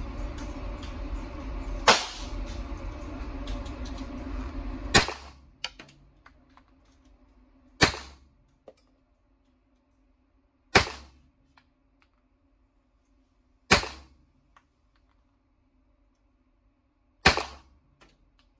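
Six single 9mm gunshots from a CZ Scorpion Evo, fired one at a time about three seconds apart, each sharp with a short echoing tail. A steady hum runs under the first two shots and stops suddenly after the second.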